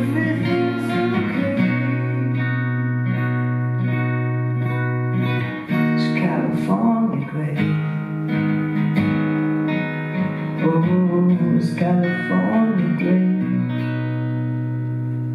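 Solo acoustic guitar playing an instrumental ending to a song, strummed and picked chords; near the end a final chord is left ringing and slowly fades.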